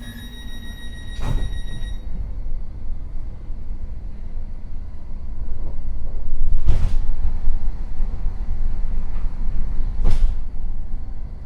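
Siemens Desiro City Class 700 electric train running, a steady low rumble that grows louder about halfway through, with three sharp knocks spread across it.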